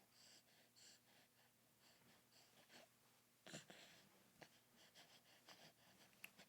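Near silence: faint, short breaths and small mouth sounds from a three-month-old baby, with one slightly louder breath about three and a half seconds in.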